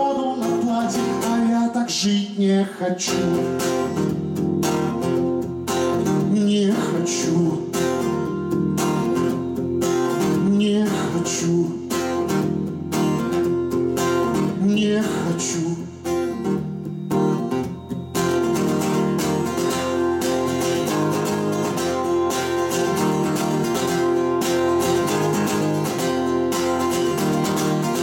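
A man sings a Russian bard song over a strummed steel-string acoustic guitar. About eighteen seconds in the voice stops and the guitar carries on alone in a steady strummed rhythm.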